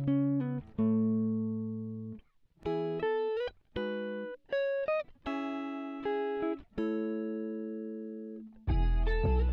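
Background music: a melody of single notes that ring and fade one after another, with a fuller backing and bass coming in near the end.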